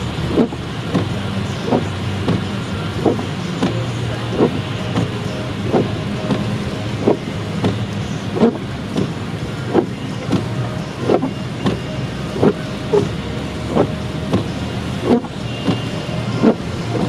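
Car windshield wipers sweeping steadily back and forth, heard from inside the cabin. Each turn of the blades gives a soft thump about every two-thirds of a second, every other one louder, over the steady hum of the engine and tyres on a slushy road.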